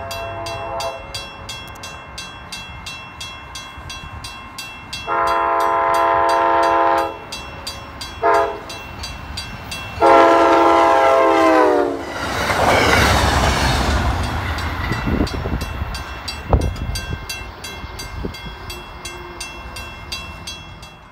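A passenger train's horn sounds a grade-crossing signal of long, long, short and long blasts. The train then rushes past with wheels clacking over the rails and one sharp bang along the way. A crossing bell rings rapidly underneath.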